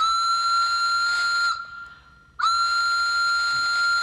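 Single-note whistle blown in two long blasts, each about a second and a half, the second starting about two and a half seconds in; each blast scoops up slightly as it starts and dips as it stops.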